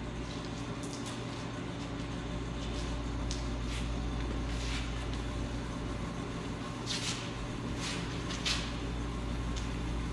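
Steady low hum of the shop with a few brief swishes of hand wet sanding with 3000-grit paper on clear coat, two of them more distinct near the end.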